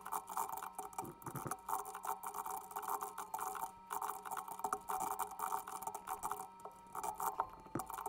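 Computer keyboard typing in quick runs of keystrokes with short pauses between them.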